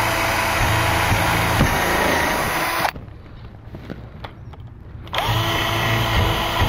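Power drill boring pilot holes through a pressure-treated wooden stake: the motor whines up to speed and runs steadily for about three seconds, stops, then starts again for the next hole about five seconds in.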